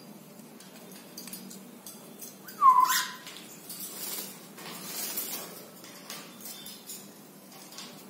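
A pet parrot gives one short, loud call about three seconds in, dropping slightly in pitch, followed by soft rustling.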